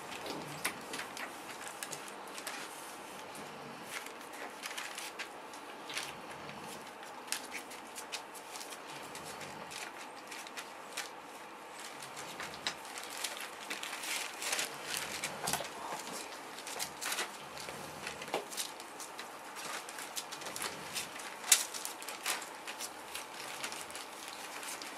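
A litter of four-week-old Boerboel puppies suckling from their mother, a steady run of irregular small wet clicks and smacks, with one sharper click about 21 seconds in.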